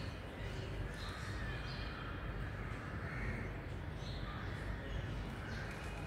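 Crows cawing several times, harsh calls about half a second each, over a steady low rumble.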